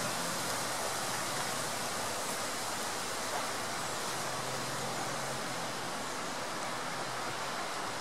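Soča river water rushing at a steady, even level, a continuous hiss of fast-flowing water.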